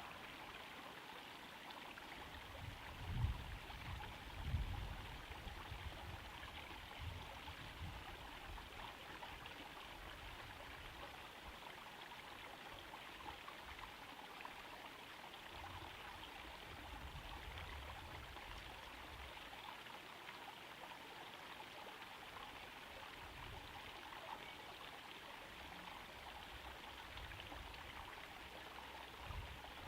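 Water from a small garden-pond waterfall trickling steadily into the pond. Two low thumps stand out about three and four and a half seconds in.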